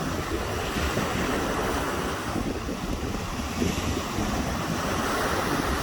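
Ocean surf breaking and washing on the beach, with wind buffeting the microphone in a steady low rumble.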